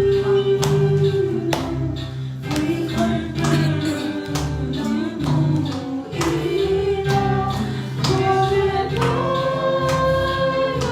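Gospel hymn sung by a group of voices over instrumental accompaniment with a steady beat.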